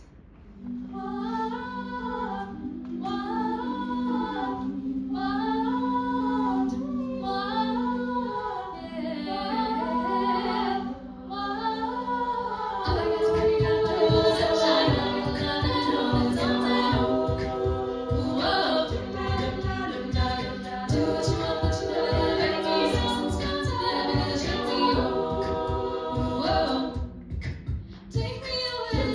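An a cappella vocal group singing in close harmony: held low notes under repeated rising-and-falling vocal figures, with vocal percussion (beatboxing) coming in with a steady beat about 13 seconds in.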